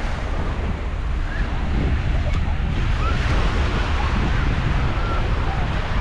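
Wind buffeting the microphone over the steady wash of small waves breaking on the beach, with faint distant voices.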